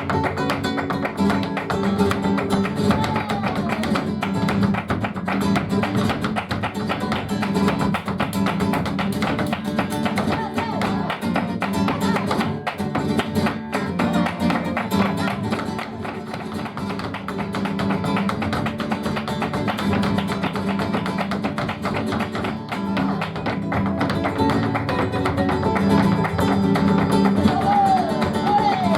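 Live flamenco music in the guajira style: guitar playing, with a singer's voice gliding in near the end.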